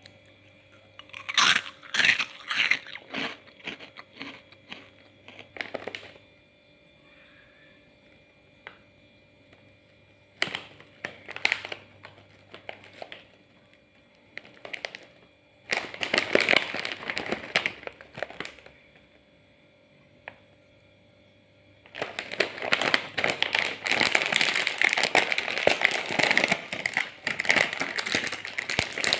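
Crunchy keropok (puffed snack crackers) and their packet being handled and eaten: bursts of crisp crunching and crinkling separated by pauses, then a longer, denser stretch of crackling near the end.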